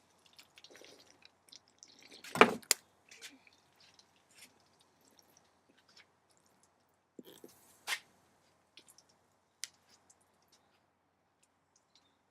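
Soda dripping and splashing from a punctured aluminium can as it is shotgunned, with small wet sounds and scattered light clicks of the can. One louder knock or splash about two and a half seconds in.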